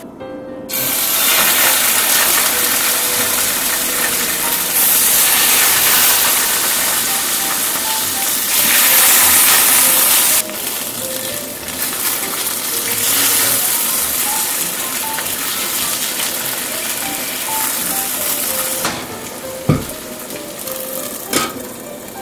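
Salted salmon fillets sizzling loudly as they fry in a nonstick pan, a steady hiss that swells and eases a few times. Two sharp knocks near the end as a lid is set on the pan, with soft background music underneath.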